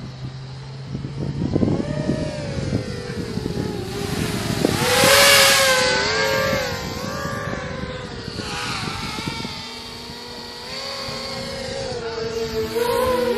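Small FPV quadcopter's motors and propellers whining in flight, the pitch rising and falling constantly with the throttle. It is loudest about five seconds in, as the quad comes close, and then settles to a lower, steadier whine.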